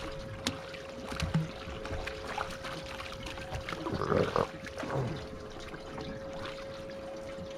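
Water lapping and trickling around a small fishing boat, with a steady whine held throughout. There is a single click about half a second in and a short louder sound about four seconds in.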